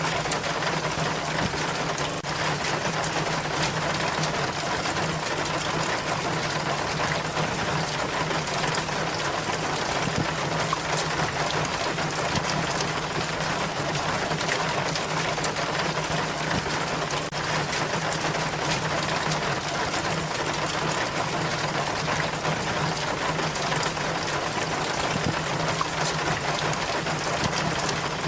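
Rainwater running down a rain chain, a steady splashing and trickling of water, with a steady low hum underneath.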